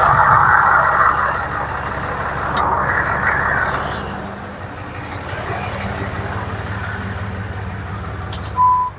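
Ram 2500's Cummins diesel engine running, louder and harder for the first few seconds and then settling to a steady run. The truck is being used to press the wheel hub out by turning the steering under power. A short beep-like tone comes near the end.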